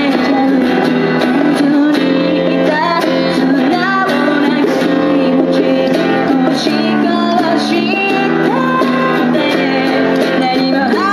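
Music: a singing voice over guitar accompaniment, playing continuously.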